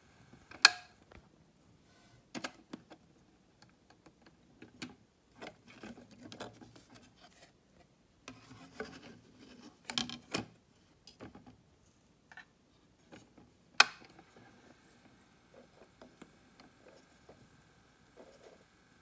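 A 45 rpm vinyl single being handled on a turntable and turned over to its other side: scattered knocks and rubbing, with a sharp click about half a second in and another about fourteen seconds in.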